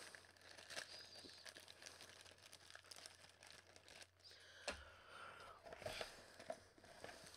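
Faint crinkling and rustling of wrapped candies and packaging being handled, with scattered small clicks and one sharper tap about halfway through.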